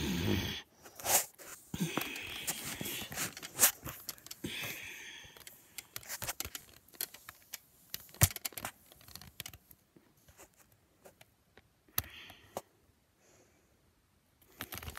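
Handling noise: rustling, scrapes and scattered clicks and knocks as plush toys and a plastic toy gun are moved close to the microphone. It is busiest in the first few seconds and thins to occasional faint clicks near the end.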